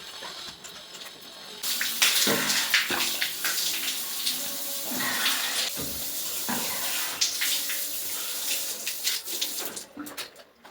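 Tap water running and splashing as a face is washed by hand at a sink, starting about two seconds in and stopping near the end.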